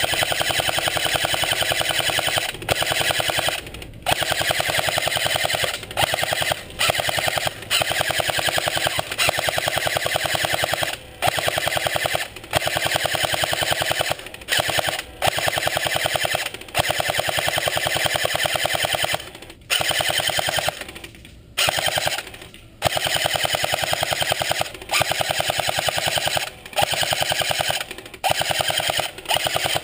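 Airsoft M249 SAW electric gun firing long full-auto bursts, a rapid mechanical clatter lasting several seconds at a time with short pauses between.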